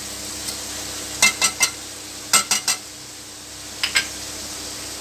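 Thin beef slices sizzling steadily in oil in an aluminium karahi, with a metal slotted spoon clinking against the pan in quick groups: three clinks, then three more, then two near the end.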